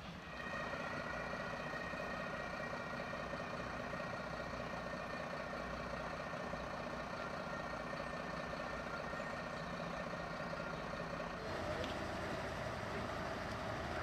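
Diesel engine of a Mercedes-Benz turntable ladder fire truck idling steadily, with several steady high tones over it. About eleven and a half seconds in, the sound changes abruptly to a different steady vehicle noise.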